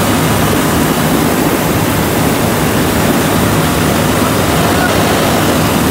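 Combine harvester unloading paddy through its auger spout into a trailer: a steady, loud rush of grain pouring, with the combine's engine running underneath.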